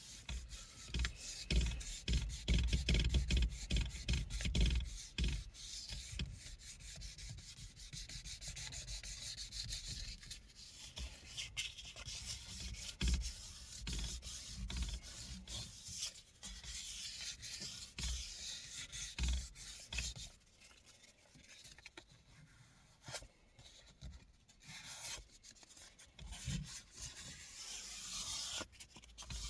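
Sandpaper rubbed by hand over the worn leather of a car steering wheel, quick scraping strokes to rough up and smooth the damaged surface. Dull knocks mix in during the first few seconds, and the strokes grow softer after about twenty seconds.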